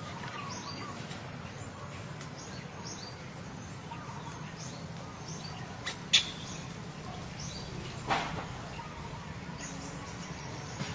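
Small birds chirping, with many short, high, falling chirps repeated over a steady low background noise. A sharp click about six seconds in and a brief rustle-like burst about eight seconds in stand out above the rest.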